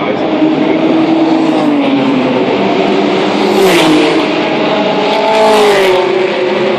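Engines of several 1970s and 80s racing touring cars passing at speed, their notes rising and falling, with the loudest passes about four and five and a half seconds in.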